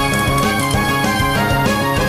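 Background music with a steady beat and a repeating bass line, in the style of video game music.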